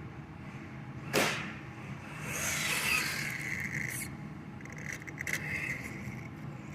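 Small electric 1/14-scale RC rally car being driven, its motor whining as it speeds up and slows down in two spells. There is a sharp whooshing burst about a second in.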